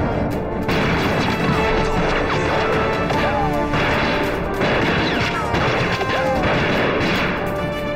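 Fight-scene sound effects of broadsword strikes and impacts in a continuous din, over a background music score.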